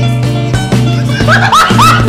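Background music with steady bass and chord notes; a little over a second in, a run of short rising squeaky calls sounds over it.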